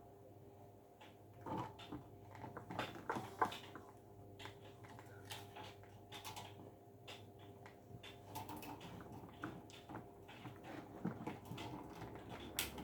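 Hands working on a plastic desk fan: scattered clicks, knocks and rattles of plastic parts being handled and fastened. A steady low hum runs underneath.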